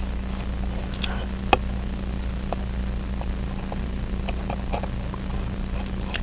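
Steady low electrical hum under faint, scattered small metal clicks of watchmaker's tweezers and screwdriver on a pocket-watch movement, with one sharper click about a second and a half in.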